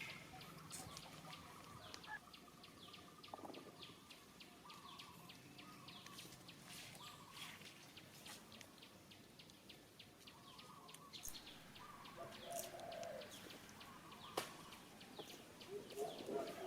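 Faint outdoor bird calls, with many short, rapid chirps and a few chicken-like calls; near the end a run of evenly spaced low cooing or clucking notes begins.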